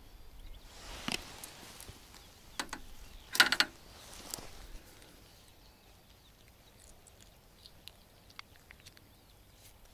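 Quiet outdoor background with a few scattered clicks and one short, louder rattling clatter about three and a half seconds in.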